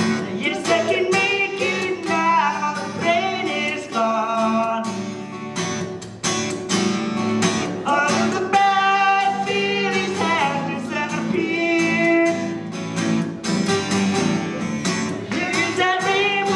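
Live song: an acoustic guitar played with voices singing into microphones.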